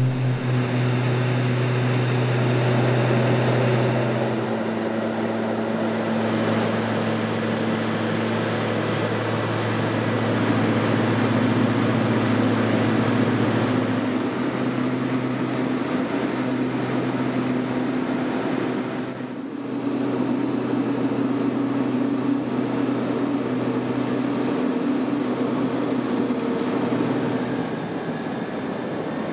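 Propeller aircraft's engines droning steadily, the pitch and tone shifting a few times, with a brief dip about two-thirds of the way through.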